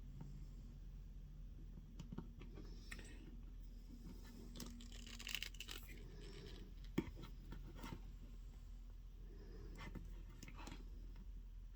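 Faint handling noises of a NECA Phantom plastic action figure being posed by hand: small scrapes, rustles and joint clicks, with one sharp click about seven seconds in, over a steady low hum.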